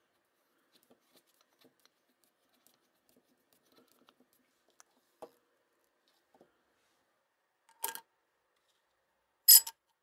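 Faint ticking and scraping as a handle's threaded stud is screwed into a polished metal coffee-maker lid, then two sharp metal clinks near the end, the second louder and ringing.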